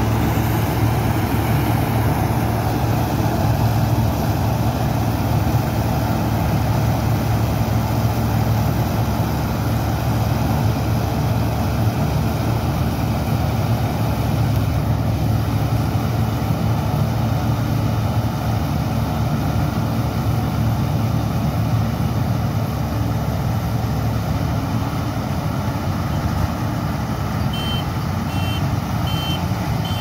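Zoomlion combine harvester running steadily as it cuts paddy, a loud, even engine and machinery drone. Near the end come three short, high beeps.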